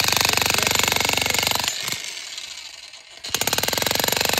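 Jackhammer with a pointed bit pounding into a chunk of concrete in rapid, even blows. About two seconds in, the hammering stops and the tool winds down for about a second and a half, then starts pounding again.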